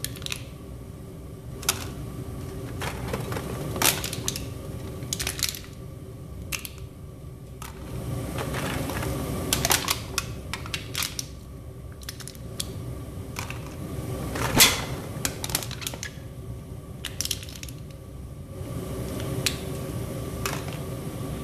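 Aluminium soda cans crinkling and clinking as they are crushed by hand and dropped into the crucible of a propane-fired furnace: irregular sharp clicks and crackles over the burner's steady noise.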